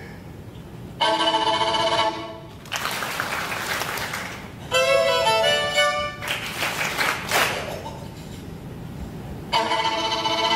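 Violin played in three short phrases of held notes with gaps between, the middle phrase opening with a sliding note.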